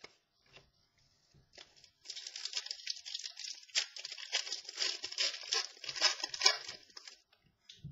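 Crinkling and rustling of trading cards and their plastic packaging being handled, a dense crackle of small clicks that starts about two seconds in and lasts some five seconds.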